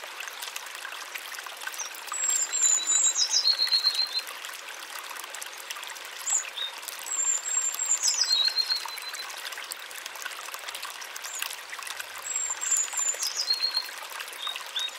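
Water trickling steadily, with a songbird repeating the same short song several times over it: a high whistled note, a quick falling phrase, then a fast run of lower notes.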